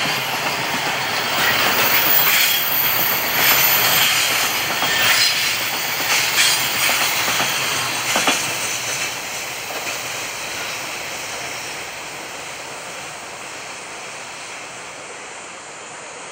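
Loaded container freight wagons rolling past close by, wheels clacking over the rail joints with a steady rattle and hiss. From about halfway on the sound fades steadily as the end of the train draws away.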